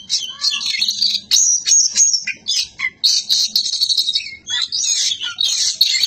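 Oriental magpie-robin (kacer) singing a rapid, varied song of high chirps and whistles, broken by brief pauses.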